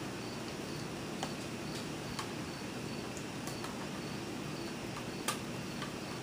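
Plastic clips of a laptop screen bezel clicking as it is pressed back into place along its edges: a few scattered sharp clicks, the loudest about five seconds in. A faint high chirp repeats steadily in the background.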